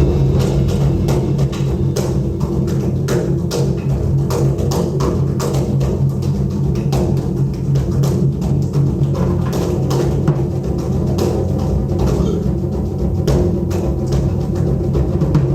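Taiko drums played by an ensemble: a continuous deep booming roll with many sharp strikes layered over it, several a second, without a pause.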